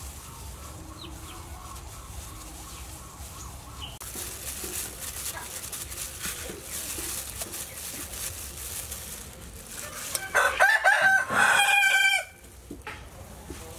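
A rooster crows once, loudly, for about two seconds near the end. Before it comes a light crinkling of a plastic bag worn over a hand as minced pork is pressed into bitter gourd pieces.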